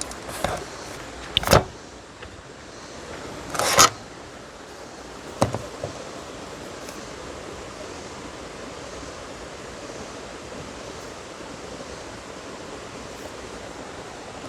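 Four sharp knocks and clatters in the first six seconds, the second and a longer third one loudest, then a steady rushing hiss.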